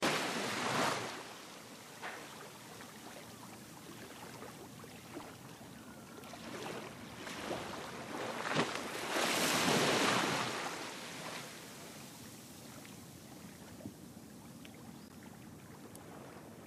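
Harbour ambience: a steady hiss of wind and lapping water with no clear tones. It swells louder twice, once at the very start and again for about two seconds around nine to ten seconds in.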